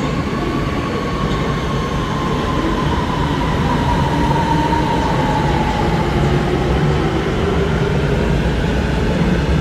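CRRC SFM93 metro train's IGBT-VVVF traction inverter and motors whining over a steady rumble of wheels on rail. The main whine falls slowly in pitch as the train slows along the platform.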